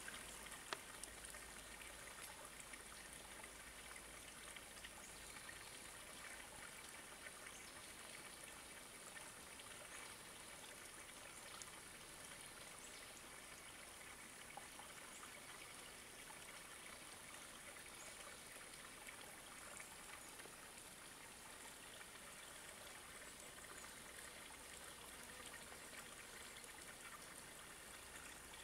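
Near silence: a faint, steady outdoor hiss with no distinct sounds.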